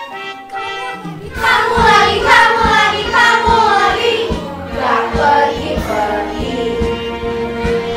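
Children's song with a steady beat: a short instrumental lead-in, then children's voices singing from about a second in.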